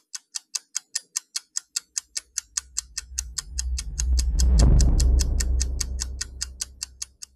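Intro sound effects for an animated logo: steady clock-like ticking, about five ticks a second, over a deep low swell that builds from a couple of seconds in, peaks around the middle and fades away; the sound stops abruptly near the end.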